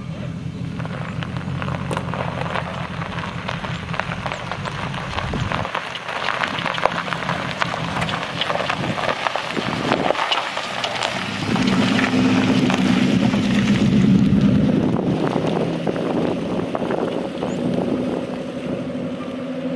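Pickup truck's 5.6-litre V8 running while the truck drives, under a steady crackling rush of tyre and road noise. The engine drops back about five seconds in, then comes in louder and higher at about twelve seconds, as when accelerating.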